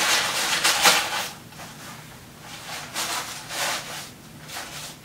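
Plastic bags crinkling and rustling as a zip-top bag of small items is stuffed into a green stuff sack. It comes in a long burst for the first second or so, then in several shorter bursts.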